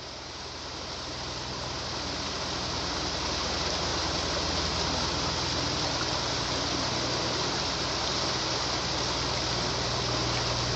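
Water pouring and splashing steadily over the rocks of a small garden waterfall, fading in over the first few seconds, with a low steady hum underneath.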